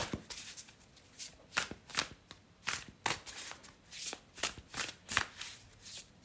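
A deck of tarot cards shuffled by hand, overhand, cards sliding from one hand to the other: a run of short papery swishes, about two a second.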